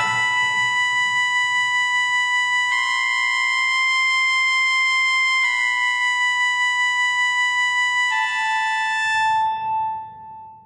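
Slow music of long held notes, changing about every three seconds with a slight pulse, then fading out near the end.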